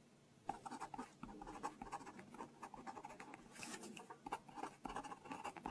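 Pen writing on paper: a quick run of short scratching strokes, starting about half a second in, as a loan record is filled in.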